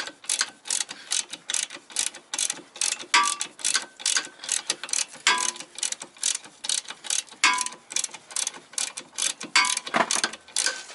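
Hand ratchet clicking in quick strokes, about four clicks a second, as a bolt is backed out of the engine mount on a VW Mk2 GTI. A short squeak comes roughly every two seconds.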